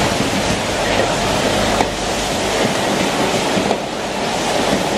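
Hot oil sizzling and crackling as pieces of sturgeon deep-fry in a wok, with one sharp tap about two seconds in.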